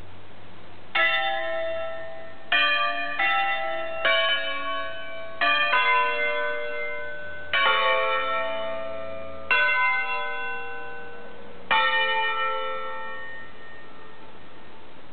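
Five Ambrosian church bells (Roberto Mazzola, 1952, tuned A3, B3, C#4, D4, E4) rung 'a concerto' by electric drive under manual control. About eight strokes fall at uneven intervals, picking out a melody across the different bells. Each stroke rings on and dies away, and the last fades out near the end.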